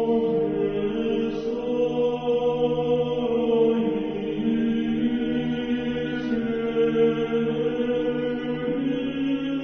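Church choir chanting slowly, the voices holding long, steady notes.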